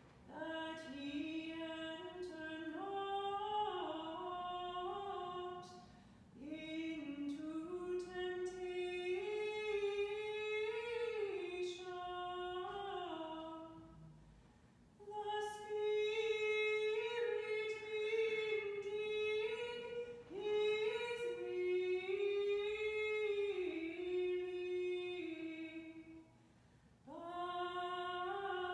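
A single voice chanting an unaccompanied liturgical melody, in phrases of several seconds that move in small steps and hold notes, with brief pauses for breath between them.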